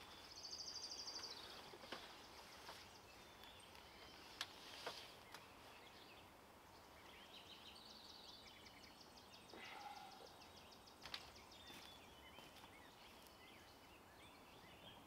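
Faint songbirds in the woods: a fast, high trill near the start and another longer trill about halfway through, over quiet background, with a few light knocks.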